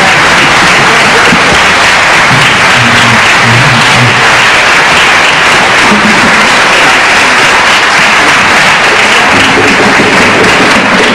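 Audience applauding, dense and steady throughout, with a few faint voices mixed in.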